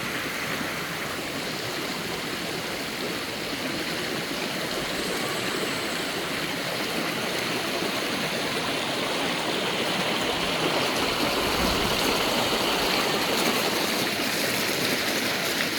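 Mountain stream water rushing and splashing over rocks, a steady continuous rush.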